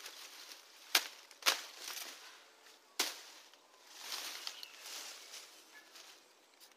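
Overgrown rooftop plants and branches being chopped and cut back: three sharp strikes, about 1 s in, half a second later and at 3 s, with leaves and stems rustling in between and for a while near the end.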